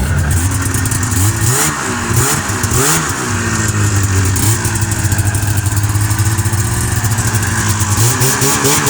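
1996 Ski-Doo MX Z 440's two-stroke twin engine running on a freshly rebuilt carburettor. It idles steadily and is given short throttle blips, so the pitch rises and falls a few times between about one and three seconds in and again near the end.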